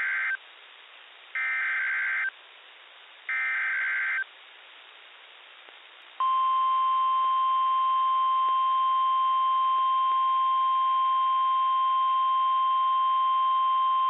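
NOAA Weather Radio Emergency Alert System alert for a tornado warning: the end of one and then two more short screeching data bursts of the SAME header, about two seconds apart, then, about six seconds in, the long steady 1050 Hz warning alarm tone, over a faint radio hiss.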